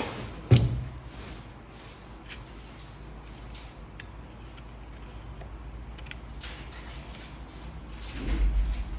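Handling noises from a cordless belt sander (band file) during a belt change: a sharp knock about half a second in, scattered light clicks, and a dull low thump near the end. The motor is not running.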